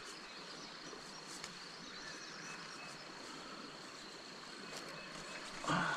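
Insects trilling steadily with one high, even tone, faint against a quiet outdoor background; a short rustle near the end.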